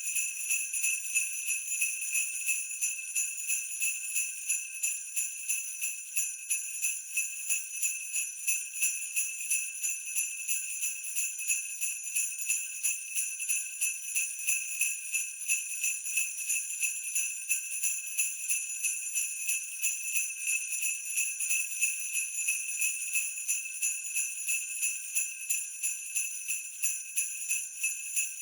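Sleigh bells shaken in a steady rhythm, about two or three shakes a second, ringing on evenly throughout.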